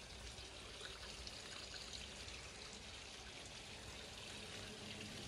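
Hot spring water pouring and trickling into an open-air rock bath: a faint, steady splashing hiss.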